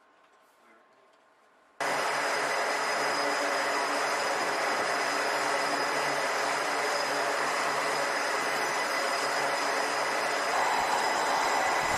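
Near silence, then an abrupt cut about two seconds in to the loud, steady running of jet aircraft engines on a carrier flight deck, with a high steady whine over a broad roar.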